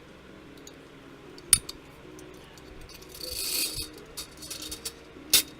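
Sharp metallic clicks and a short scraping rattle from AR-15 rifle parts being handled and fitted, with the loudest clicks about a second and a half in and near the end. Quiet background music runs underneath.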